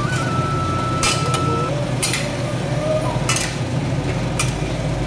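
Metal spatula scraping and clinking against a steel kadai as chopped vegetables are stirred and turned, several strokes about a second apart, over a steady low hum.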